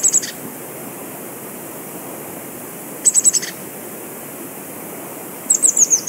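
Blue tit calling: three short bursts of rapid, very high, thin notes a few seconds apart, the last with its notes falling slightly in pitch, over a steady hiss.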